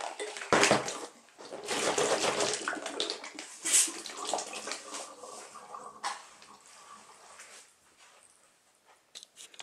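Water swishing in plastic soft drink bottles joined by a tornado tube as they are swirled by hand, then the water swirling down through the tube in a vortex into the lower bottle, the swishing fading away after a few seconds.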